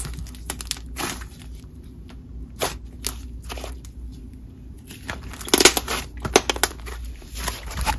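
Thick, doughy clay slime being folded and pressed by hand, giving scattered sizzles and crackles as trapped air pops, with a louder run of pops about five and a half to seven seconds in.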